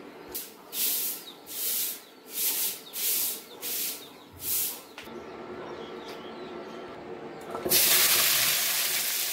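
A hand broom swept across a cement floor in about seven quick strokes. Near the end, chopped onions drop into a hot steel pan and start a loud, steady sizzle.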